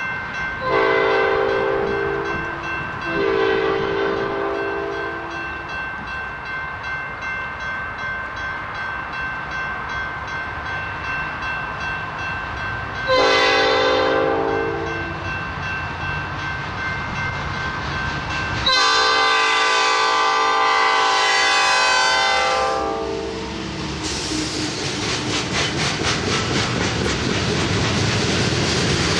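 Diesel locomotive's multi-note air horn sounding the grade-crossing signal: two long blasts, a shorter one about 13 seconds in, then a final long one, over the steady rumble of the engine. Near the end the train reaches the crossing and its wheels clatter rhythmically over the rail joints.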